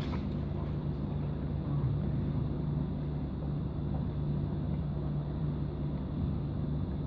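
Steady low hum and faint background noise of a quiet prayer hall, with no recitation.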